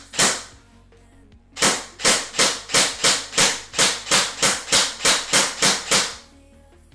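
Airsoft gun firing BBs through a tracer/chronograph unit on its muzzle. One sharp shot comes right at the start; then, about a second and a half in, a rapid string of about fourteen shots follows at roughly three a second and stops about six seconds in.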